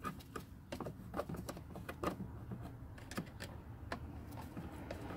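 Flathead screwdriver working a hose clamp on an engine's intake tube: irregular light clicks and taps of metal on metal.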